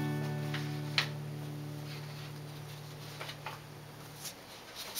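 The last strummed chord of an acoustic guitar ringing out and slowly dying away, gone after about four seconds. A light click comes about a second in, and a few faint ticks come near the end.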